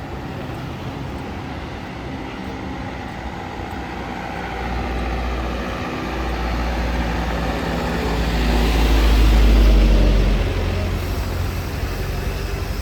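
Street traffic with a heavy vehicle passing close: a deep rumble that swells to a peak about nine to ten seconds in, then drops away.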